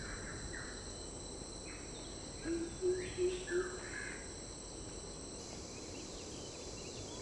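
Tropical forest ambience: a steady high-pitched insect chorus with scattered bird calls. A short run of four low notes, the loudest sound here, comes about two and a half seconds in.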